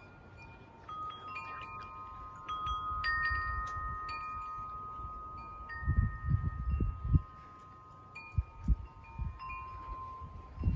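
Metal wind chimes struck irregularly, several clear tones overlapping and ringing on for seconds. Low rumbling bursts of moving air come in about six seconds in.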